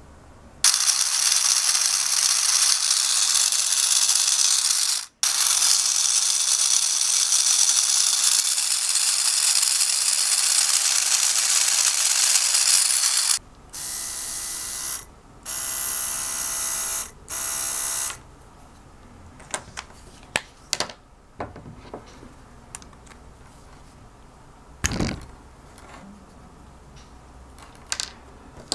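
A recycled printer DC motor drives a 3D-printed plastic spur-gear gearbox with a 16:1 reduction, running with a loud, steady gear rattle for about twelve seconds, with a brief stop about five seconds in. Then the bare motor spins on its own in three short, quieter bursts, followed by a few small clicks of handling.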